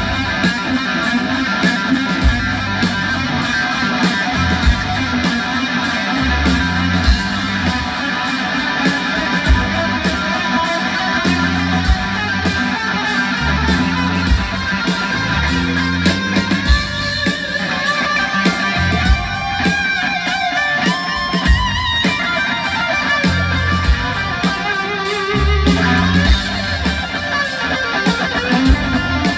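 A rock band playing live and loud: electric guitar over bass guitar and drums, with sliding high notes from the guitar about two-thirds of the way through.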